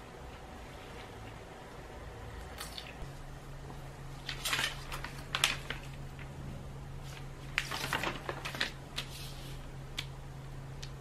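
Scattered rustles and small clicks of things being handled in a small room, over a low steady hum that starts about three seconds in.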